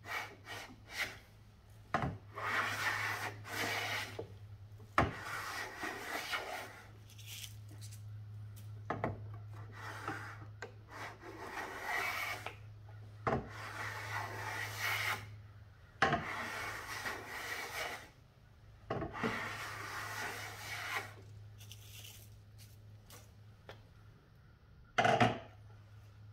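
Vintage block plane taking shavings along the edge of a wooden board: about seven pushing strokes of a second or two each, most starting with a sharp knock as the plane meets the wood.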